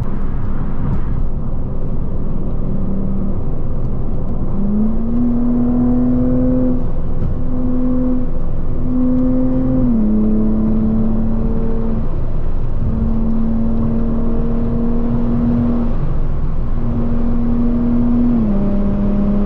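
Car driving in traffic, heard from inside the cabin: a constant low road and engine rumble under a steady engine drone that rises a little in pitch about five seconds in and drops back a few times later.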